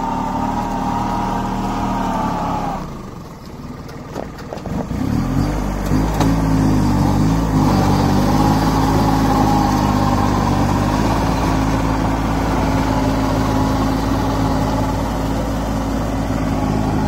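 Kubota 21 hp mini tractor's diesel engine running; its revs drop about three seconds in, pick up again around five to six seconds, then hold steady.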